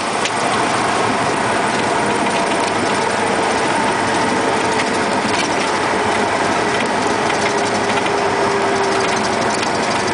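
Light single-engine airplane heard from inside the cockpit while rolling along the runway after landing: the engine and propeller running at low power under a loud, steady rush of noise with light rattling. One engine tone slowly falls in pitch.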